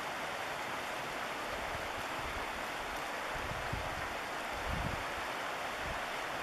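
Fast river rapids rushing steadily, with a few low rumbles in the second half.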